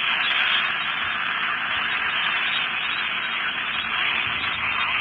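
Steady radio static: an even hiss from a weather radio receiver between transmissions, thin and band-limited like sound through a small radio speaker.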